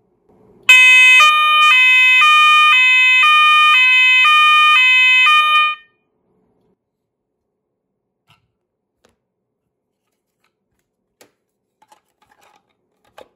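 Roshni LP (ROLP/SV) fire alarm sounder, run at 24 volts on its high volume setting, sounding a loud two-tone alarm that switches between a lower and a higher pitch about every half second. It starts about a second in and cuts off suddenly after about five seconds.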